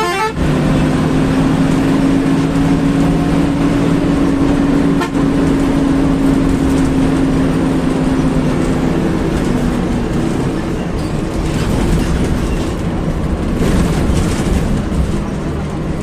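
Intercity bus's diesel engine running hard at a steady speed, heard from inside the bus at the front, over road and wind noise. Its drone holds one pitch, then sinks a little about nine seconds in.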